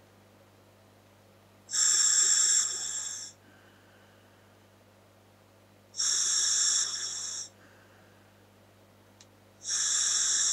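Breathing through a scuba regulator fitted to a Dräger full-face mask: three hissing breaths about four seconds apart, each a second and a half or so long, loud at first and then softer, the third starting near the end.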